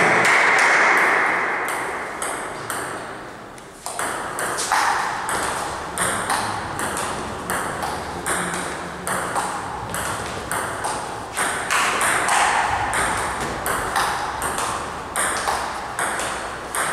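Table tennis rally: the ball clicking back and forth off the bats and the table at about two hits a second, starting about four seconds in. It follows a louder noisy sound that fades away over the first few seconds.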